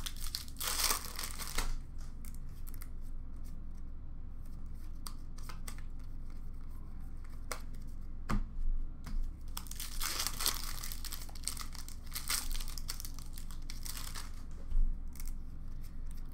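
Foil wrappers of 2015-16 Upper Deck Series 1 hockey card packs being torn open and crinkled, in several bursts of about a second each, with light clicks and taps of cards being handled between them.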